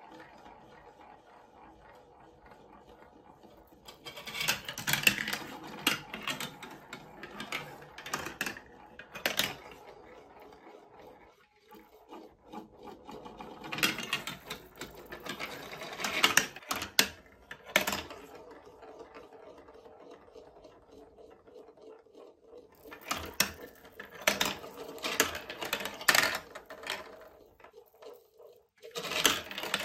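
Plastic balls rolling along the plastic tracks of a block-built marble run, a steady rolling rumble broken by four spells of rapid clattering and knocking as they drop down the stair-like steps and hit the chutes.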